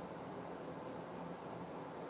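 Steady hiss of a room air conditioner running.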